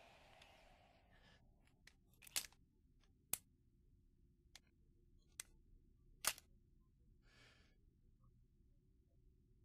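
Near silence broken by a few short, sharp clicks and knocks. The four loudest come between about two and six and a half seconds in, with a short soft hiss about a second later.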